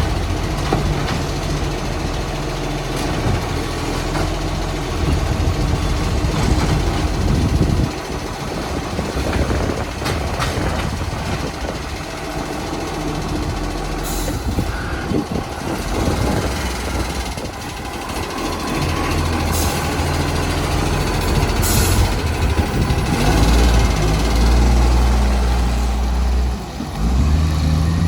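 Recycling truck's diesel engine running with an exhaust leak, its note rising and falling as it works, with two short air hisses, one about halfway through and one later.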